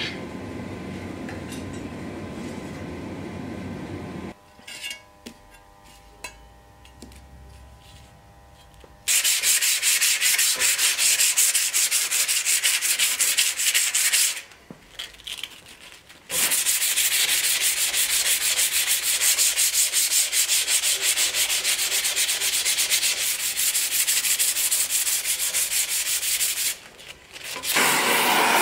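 A propane gas forge's burner gives a steady rush for the first four seconds. After a short lull come two long stretches of hand-filing a forged leaf-spring steel bowie knife blade, a rapid rasping scrape of steel on steel broken by one short pause. Near the end a gas torch starts up with a steady hiss.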